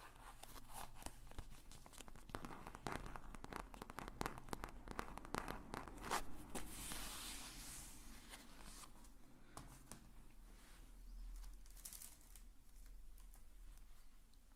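Close-miked crinkling and tearing of a material handled as an ASMR trigger: dense crackles through the first half, with a brief hissing tear about halfway through, then sparser crackles.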